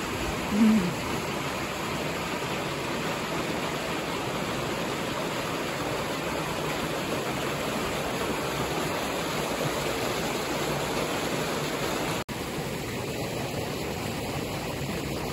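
Small stream flowing, a steady murmur of running water. About half a second in, a single short low hooting call stands out as the loudest sound, and the water sound drops out for an instant about twelve seconds in.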